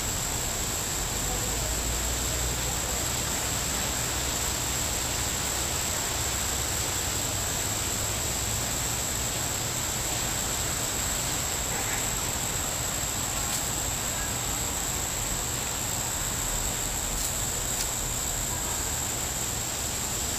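Steady background hiss with a constant high-pitched whine and a low rumble underneath, unchanging throughout, with no distinct knocks or rustles standing out.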